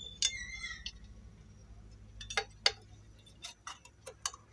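Light metal clicks and taps as a steel face plate is fitted by hand onto a sewing machine head. There is a brief metallic ring about a quarter second in, then a scatter of sharp clicks in the second half.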